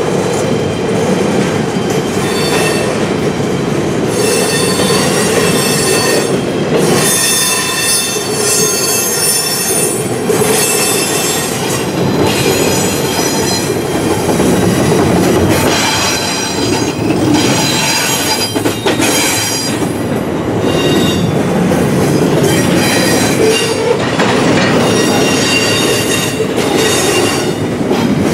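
Double-stack intermodal train of container well cars rolling past, a steady loud rumble of the cars with steel wheels squealing in high tones that come and go every few seconds.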